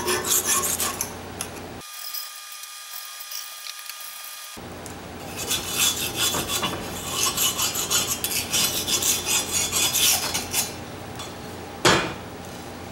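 Hand scraping and rasping strokes on a steel rotary mower blade, as the high-lift blade is cleaned of built-up grime and sharpened. The strokes are irregular and pause for a few seconds early on. A single sharp knock comes near the end.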